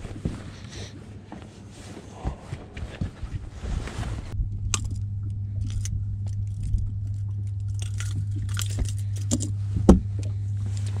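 Metal clicks, rattles and scrapes of pliers and a crankbait's treble hooks as a smallmouth bass is unhooked on a boat's deck, with a sharp knock near the end, over a steady low hum.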